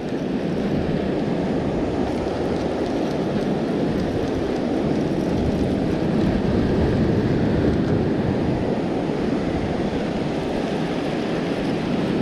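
Steady noise of wind buffeting the microphone over surf washing up the beach, with no break or change.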